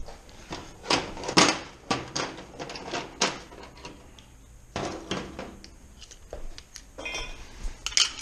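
Metal gearbox parts being handled: a series of sharp clinks and knocks, metal on metal, loudest in the first few seconds and again about five seconds in.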